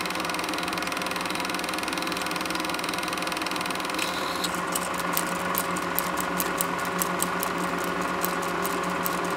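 Super 8 film projector running with a steady mechanical whirr and hum. About four seconds in, as the end of the film runs through, sharp clicks start, about three or four a second.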